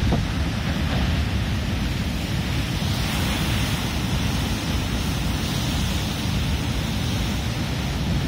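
Rough North Atlantic surf breaking and washing over shoreline rocks, with wind buffeting the microphone. The hiss of the surf swells for a few seconds starting about three seconds in.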